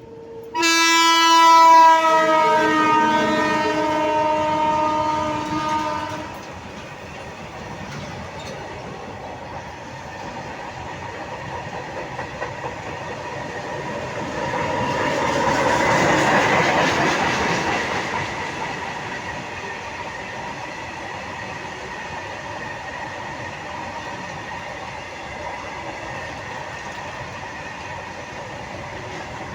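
Indian Railways WAG-9 electric locomotive sounding one long horn blast of about five seconds, the loudest sound, near the start. The goods train then rolls past, its rumble building to a peak about halfway through and settling into a steady clatter of freight wagons on the rails.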